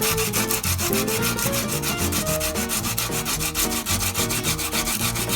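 Sandpaper rubbed by hand along a steel knife blade forged from rebar, in quick, regular strokes several a second, polishing the blade toward a satin finish.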